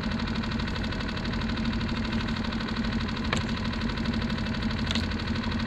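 Small outboard motor on a skiff idling steadily, with two faint clicks, one past the middle and one near the end.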